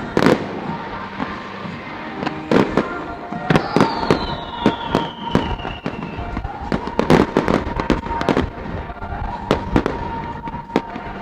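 Fireworks display: shells bursting in a quick, irregular run of sharp bangs and cracks, with a falling whistle about three and a half seconds in.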